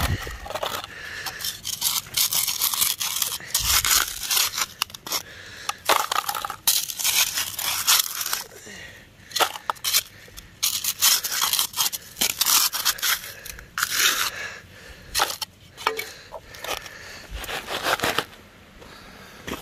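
A hand scoop digging repeatedly into a bank of gravelly red clay and dirt, irregular scrapes and crunches, as the dirt is loaded into a plastic gold pan.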